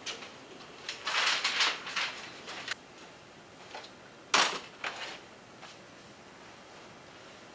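Rustling, scraping noises, then a single sharp knock about four seconds in.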